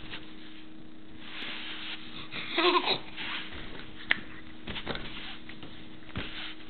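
Baby babbling, with one short high-pitched coo about two and a half seconds in and soft breathy sounds around it. A sharp click about four seconds in.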